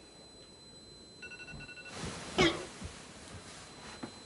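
An electronic alarm beeping in a quick run of high, evenly pulsed tones about a second in, a wake-up alarm, followed by a loud, short cough-like vocal sound from the waking sleeper, with softer bedding rustles after it.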